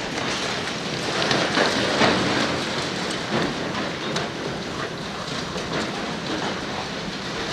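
Demolition rubble and debris falling and clattering as a building is pulled apart, a dense rushing noise with many sharp knocks and cracks scattered through it.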